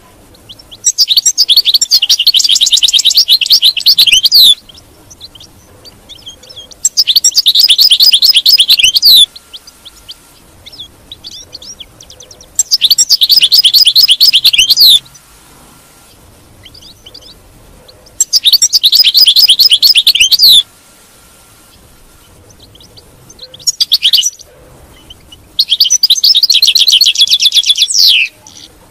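European goldfinch singing: six loud bouts of rapid, high twittering song, most about two to three seconds long and one very short, with pauses of a few seconds between them and a few faint chirps in the gaps.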